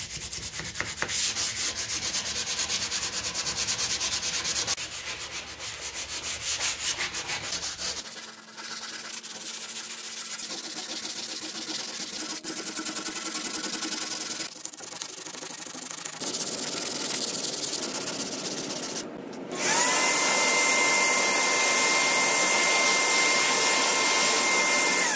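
The old finish is hand-sanded off a wooden bench top with a sanding sponge: a dense scraping rub of back-and-forth strokes. About twenty seconds in, a vacuum motor starts with a brief rising whine and runs on as a loud, steady whine to suck up the sanding dust.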